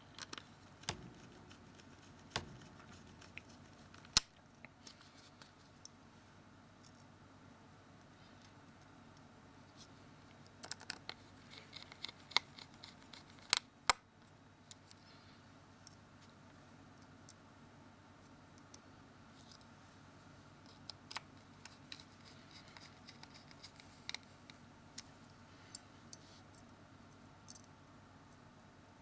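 Faint scattered clicks and ticks of a small Phillips screwdriver and screws on a phone's plastic case as the case screws are driven back in, with two short runs of quick ticking.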